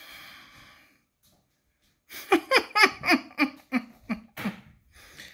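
A woman laughing: a run of about eight quick "ha" pulses stepping down in pitch, starting about two seconds in and lasting some two and a half seconds.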